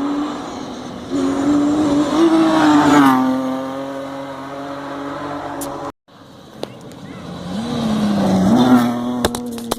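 Rally car engines at full throttle on a stage, in two separate passes. The first holds a high note, then drops in pitch about three seconds in as the car goes by. After a cut near the middle, a second car comes on, building to a peak near the end, with a few sharp clicks.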